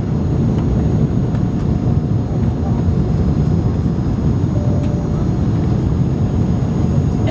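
Steady low rumble of an Airbus A300 airliner heard from inside the cabin on approach, engine and airflow noise.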